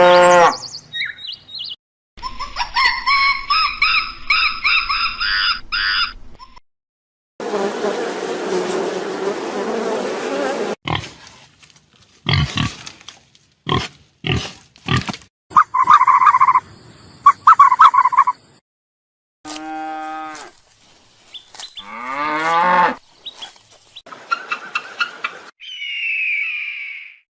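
A run of short recordings of different animal calls, one after another with brief silent gaps between them: pitched calls, a noisy stretch and quick clicking sounds.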